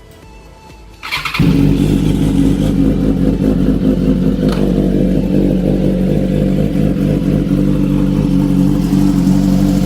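Superbike engine starting about a second in, then running steadily in first gear so the rear wheel and freshly lubed chain turn to fling off the excess lube.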